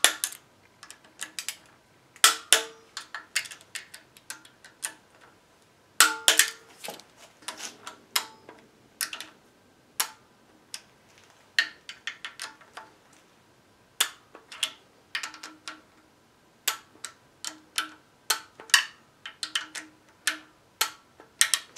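Socket ratchet clicking in short irregular runs, with light metal clinks, as the camshaft sprocket nuts and bolts on the timing chain are tightened.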